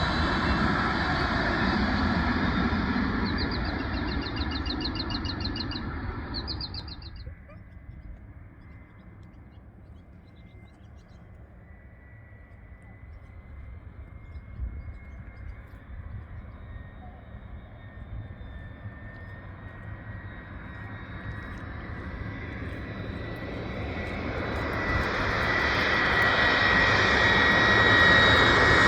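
A steady loud rumble cuts off about seven seconds in, followed by a quiet stretch. Then an approaching jet airliner on final approach grows steadily louder over the last several seconds, with a steady high engine whine above the rushing noise.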